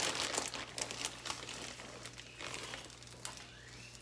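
Plastic packaging crinkling as it is handled, likely shredded cheese being taken from its bag. The crinkling is dense for the first two seconds or so, then thins out and fades.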